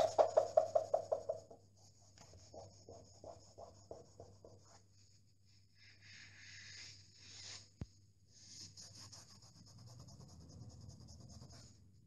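Damp cloth rubbed back and forth on a painted wall in quick short strokes, scrubbing at a mark. The strokes are loudest in the first second and a half and fainter after. A single sharp click comes about eight seconds in.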